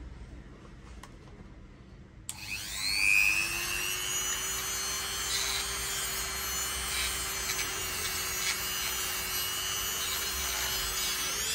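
A handheld rotary engraving tool spins up with a rising whine about two seconds in. It then runs at a steady speed, grinding into wood as it carves.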